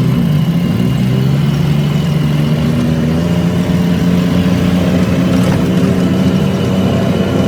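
Off-road buggy engine running steadily. It picks up slightly in the first moment, then holds an even note.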